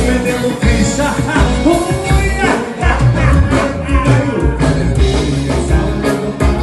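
Band music in the gaúcho tranco rhythm, with a steady, heavy bass beat and no words sung.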